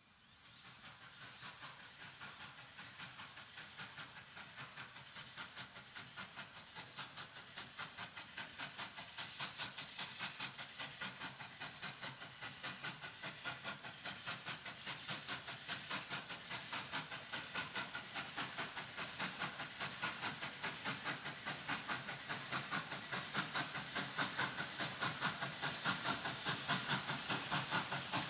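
Victorian Railways K class 2-8-0 steam locomotive working under steam, its exhaust chuffing in a quick, even rhythm with a hiss of steam. It grows steadily louder as it approaches.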